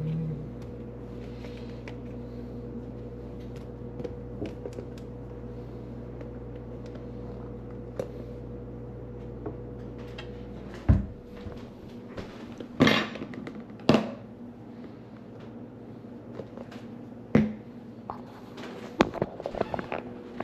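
Steady low hum of a running kitchen appliance that cuts off with a knock about eleven seconds in, followed by a few scattered knocks and clatters of kitchenware.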